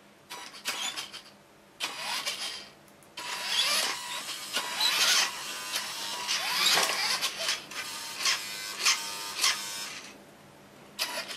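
Toy RC car's electric drive motor and gearbox whirring in a series of stop-start bursts, each rising and falling in pitch as the motor spins up and slows. The car is being driven forward and back from a laptop keypad over WiFi through an Arduino.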